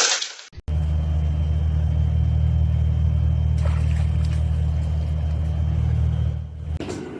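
A steady, loud low rumble that starts suddenly about half a second in and stops shortly before the end.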